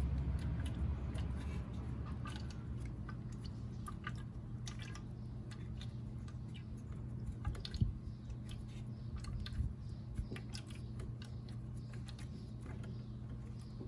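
Irregular small clicks and wet squishes as a hand-threaded caliper piston compressor is turned, pushing brake fluid out through the open bleeder screw into a catch cup. A steady low hum runs underneath.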